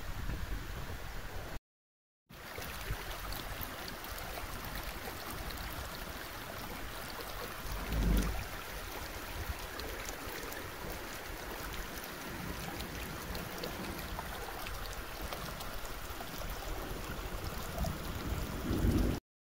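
Muddy floodwater running across a road, a steady rushing and gurgling with fine crackle. It drops out briefly about two seconds in, and wind rumbles on the microphone twice, around the middle and near the end.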